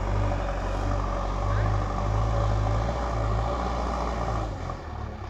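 Heavy diesel engine running with a steady low drone. It grows louder from about a second and a half to three seconds in, as if working under load, and eases off near the end.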